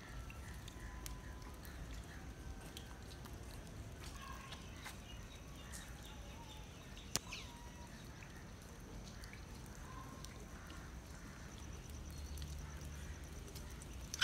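Faint outdoor ambience: scattered distant bird calls over a low steady rumble, with a single sharp click about seven seconds in.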